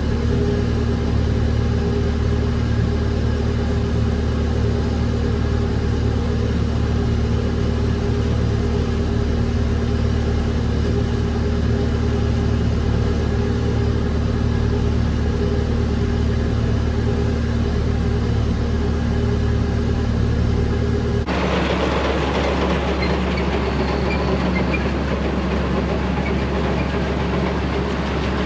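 Farm tractor engine running steadily under load while working hay. About two-thirds of the way through the sound cuts abruptly to a noisier stretch of the same kind of engine and machinery sound.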